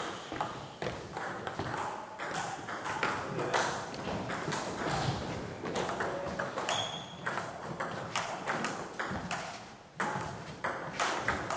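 Table tennis rallies: the celluloid ball clicking off the bats and the table in quick alternation, with a short pause just before 10 seconds in.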